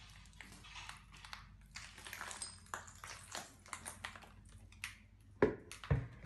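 Footsteps crunching over broken glass and grit on a hard floor: a run of small irregular clicks and crackles, with two heavier thumps near the end.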